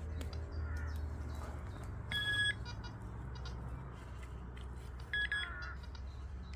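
Metal detector beeping, twice: a steady tone of about half a second two seconds in and a shorter double beep near five seconds, signalling that the metal target is still in the hole. Short clicks of soil being disturbed sound between the beeps.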